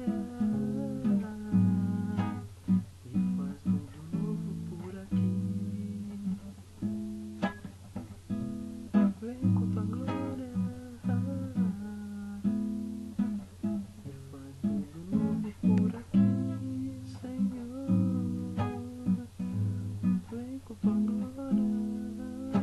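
Acoustic guitar music: chords strummed and plucked in a steady rhythm, with no clear singing.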